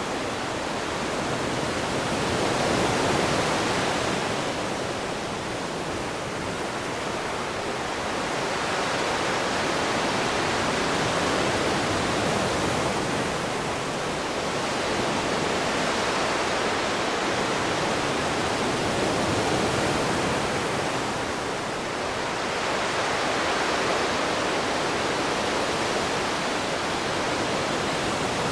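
Ocean waves breaking and washing ashore in a continuous rush that swells and eases slowly, about every eight seconds.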